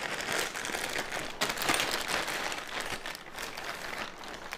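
Clear plastic bag crinkling and rustling as it is pulled off a folded metal tripod, with scattered sharp crackles, quieter near the end.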